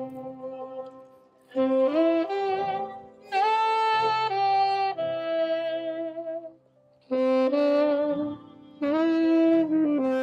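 Saxophone playing a slow melody of long held notes, phrase by phrase, with short pauses between phrases.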